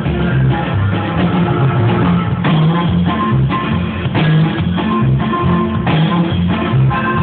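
Live norteño band playing a corrido, an instrumental passage with strummed guitar over a walking bass line. The sound is dull, cut off in the highs.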